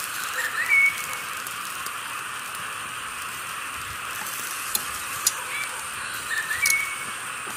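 A forest bird calls twice, each call a short rising whistle that ends on a held higher note, over a steady high hiss. Two sharp clicks come a little before the second call.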